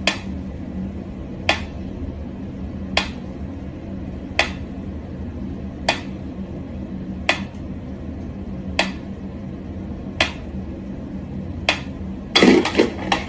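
Mechanical pyramid metronome ticking slowly and evenly, about one tick every second and a half, over a steady low hum. Near the end comes a louder, brief clatter of knocks.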